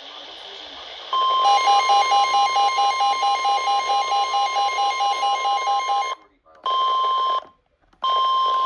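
NOAA Weather Radio 1050 Hz warning alarm tone, a single steady high tone announcing a tornado warning. For its first five seconds a second, lower beep pulses over it about four times a second; near the end the audio cuts out completely twice, the steady tone returning in between.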